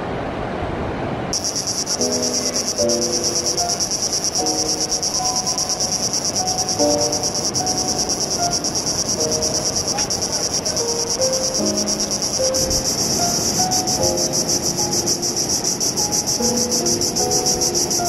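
A loud insect chorus, a dense high-pitched trill pulsing rapidly and evenly, starts abruptly about a second in and holds steady, over a low wash of surf. A slow melody of soft, separate notes plays along with it.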